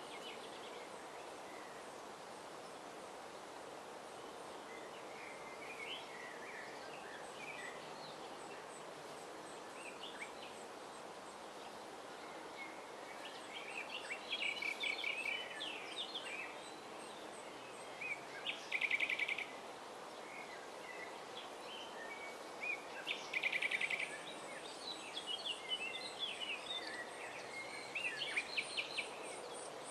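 Common nightingale singing over steady background noise: a few faint notes in the first half, then from about halfway loud, varied phrases that include fast rattling runs of repeated notes.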